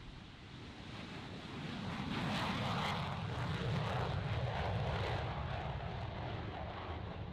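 Jet aircraft engine noise, a rumble that swells over the first two seconds, holds loud, then eases slightly near the end.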